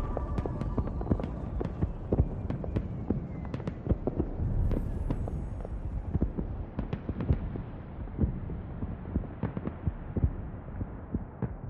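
Irregular crackling and popping over a low rumble, growing steadily duller toward the end.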